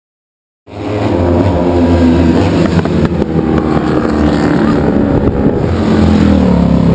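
Racing sidecar outfits' engines running hard as the outfits come down the street and pass close by. The sound cuts in abruptly about a second in.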